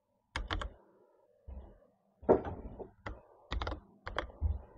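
Keystrokes on a computer keyboard: short sharp clicks in small irregular groups as a short calculation is typed.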